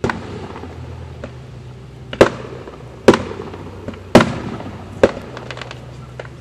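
Aerial fireworks shells bursting: four loud booms about a second apart, each trailing off in an echo, followed by a few smaller crackling pops near the end.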